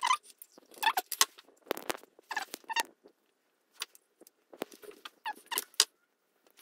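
Crimp tool squeezing blue insulated spade terminals onto thin wires: a series of short squeaks and creaks with brief gaps between them.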